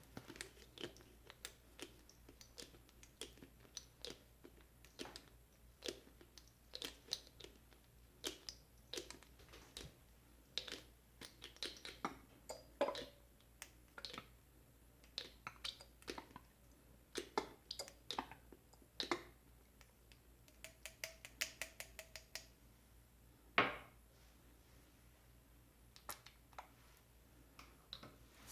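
Close-miked handling sounds: irregular soft clicks, taps and crinkles, several a second, with one sharper click near the end.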